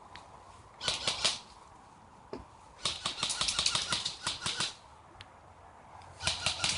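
Airsoft rifle firing three bursts of rapid shots, the longest nearly two seconds of fast clicking in the middle.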